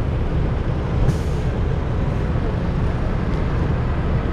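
Diesel tractor engine idling: a steady low rumble, with a brief hiss about a second in.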